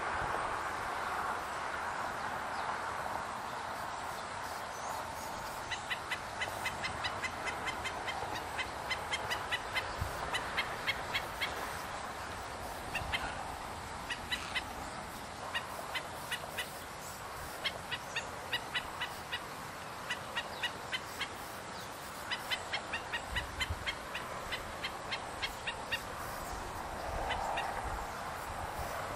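Black-necked stilt scolding an intruder: runs of short, high alarm calls at about five notes a second, coming in several bursts, over steady background noise.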